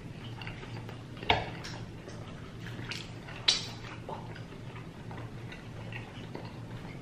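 Eating sounds: scattered sharp clicks and smacks, the two loudest a little over a second in and about halfway through, over a steady low hum.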